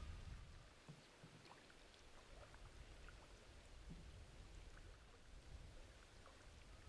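Very faint water drips and small scattered ticks around a kayak as it is paddled.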